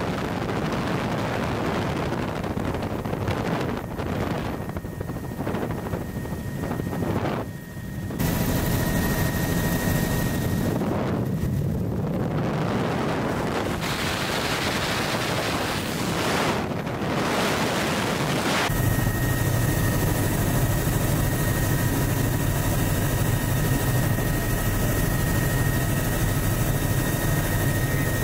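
Helicopter in flight heard from inside the open-doored cabin: steady engine and rotor noise with wind rushing over the microphone. The sound changes abruptly twice, about eight seconds in and again about two-thirds of the way through, becoming fuller in the low end with a steady whine on top for the last stretch.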